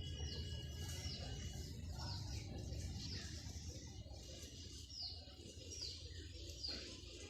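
A small bird chirping over and over, short high notes that each fall in pitch, about one every half second to a second, over a low steady rumble.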